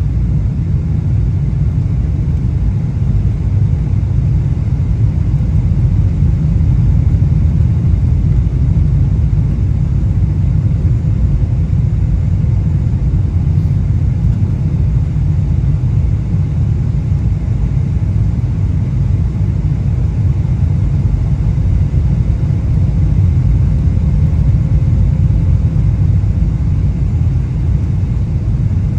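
Steady low rumble of an airliner in flight, heard from inside the cabin, with a faint steady hum over it.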